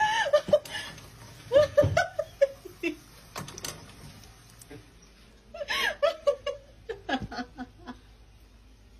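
Someone laughing in several bursts, loudest near the start, around two seconds in and around six seconds in, with quieter gaps between.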